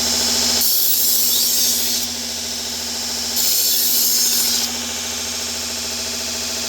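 Vevor 1x30 belt grinder running with a 240-grit belt, its motor humming steadily, while a kitchen knife blade is drawn across the belt twice, each pass a hiss of grinding steel lasting about a second and a half.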